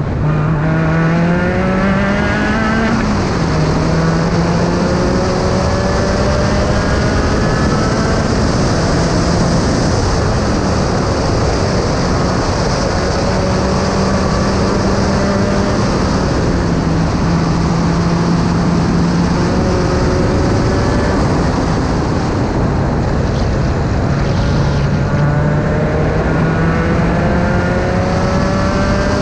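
Onboard sound of an SRF3 (Spec Racer Ford) sports racer's engine under hard acceleration, the pitch climbing and then stepping down at each upshift, several times, over heavy wind and road noise in the open cockpit.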